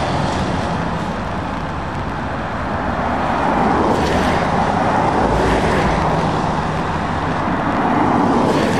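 Diesel truck tractor units and cars driving past in a steady stream on a wet road: low engine hum under continuous tyre hiss on wet tarmac, swelling each time a vehicle passes close.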